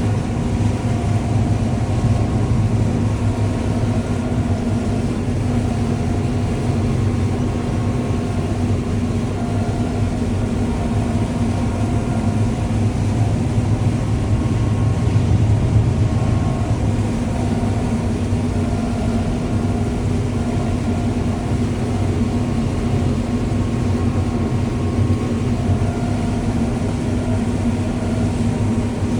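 John Deere W540 combine harvester running steadily as it harvests corn: an even drone with a low hum and a few steady tones.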